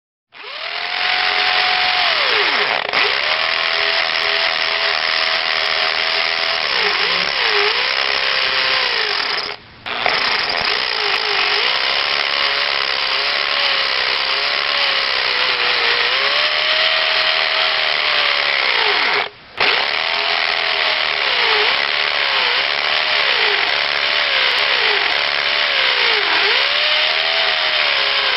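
Hammer drill running continuously, its motor pitch sagging and recovering again and again as it drills under load. It stops briefly twice, about a third and two-thirds of the way through.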